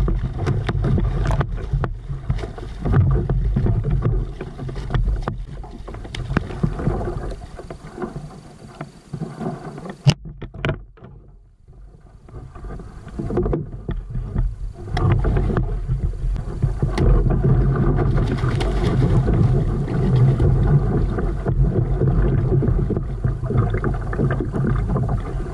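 Water splashing and repeated knocks against a plastic kayak hull as a small hooked shark is worked alongside and landed, over a steady low rumble of wind on the microphone. One sharp knock stands out about ten seconds in.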